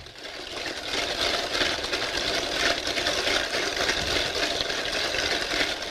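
Electric stand mixer running steadily, beating butter, sugar and eggs into a creamed cake batter. The whirring builds over the first second, then holds steady.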